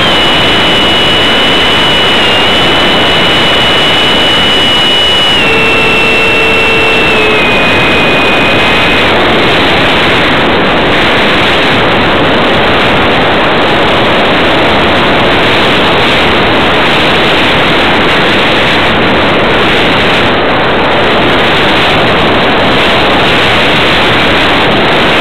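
Electric ducted fan of an RC airplane and the rush of air over it, heard through the onboard camera's microphone. The fan's high whine holds one pitch, steps down about five and seven seconds in and fades out around nine seconds as the power is cut, leaving the airplane gliding with only the loud rush of air.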